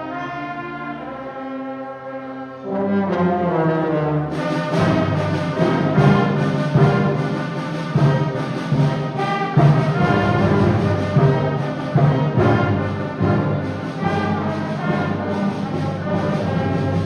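Orchestral music led by brass. It opens on held notes, grows fuller about three seconds in, and from about four seconds in moves with a steady rhythmic pulse.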